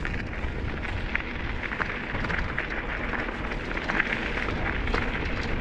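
Riding noise on a bike-mounted action camera: wind rushing over the microphone and e-bike tyres rolling on a gravel track, with small scattered crunches and ticks from the stones.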